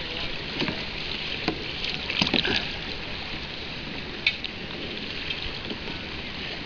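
Sea water washing and lapping around a kayak, with a few short splashes and knocks from paddle strokes, the loudest a little over two seconds in.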